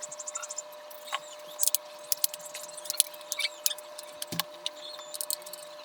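Irregular small clicks and taps of tools and fingers on a smartphone's plastic casing as it is being opened, over a faint steady tone.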